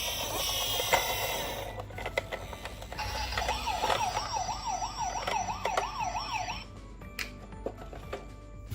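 Toy ambulance minicar's electronic siren: a fast warbling tone, rising and falling about three times a second, starting about three seconds in and stopping near seven seconds. Before it, a different electronic sound plays for about two seconds, with light clicks scattered throughout.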